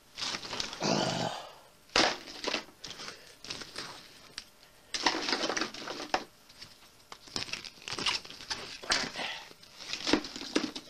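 Handling noise: irregular rustling and crinkling as things are moved about, with a few sharp knocks, the loudest about two seconds in.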